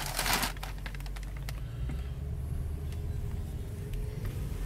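2009 Mercedes-Benz SL550's V8 engine and road noise heard from inside the cabin while driving: a steady low rumble, with a faint tone rising slowly in the second half. A short burst of noise comes right at the start.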